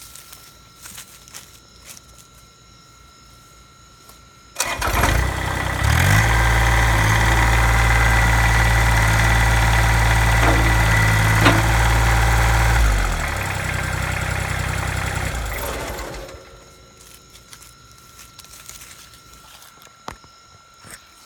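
Kubota BX22 tractor's small three-cylinder diesel engine starting abruptly about a quarter of the way in and running steadily. It drops to a lower speed a little past halfway, runs on for a few seconds, and then shuts off.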